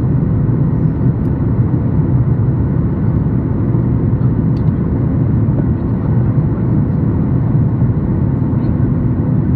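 Steady cabin noise inside a Boeing 737-8 MAX in flight: a low, even drone of the CFM LEAP-1B engines and airflow, heard at a window seat, with a few faint steady tones over it.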